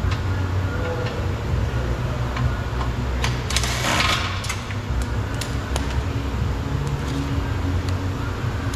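Cordless drill-driver run briefly, about three and a half seconds in, while removing screws from a car's front end, with scattered clicks of parts and plastic trim. A steady low hum runs underneath throughout.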